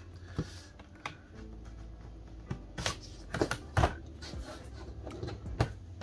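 Scattered sharp clicks and knocks, about eight, as the bottom cover of an HP Envy x360 laptop is pulled and pried at along its edge, with a low steady hum underneath. The cover is held tight and is hard to free.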